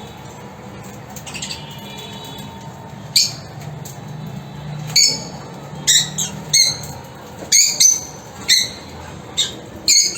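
Lovebirds giving short, shrill squawks: about ten sharp calls starting about three seconds in, some in quick pairs, over faint chirping.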